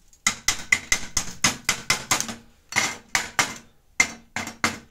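Chipping hammer knocking the slag off a freshly laid stick-welding bead on a steel test piece: quick sharp metallic taps, about six a second, in runs broken by short pauses.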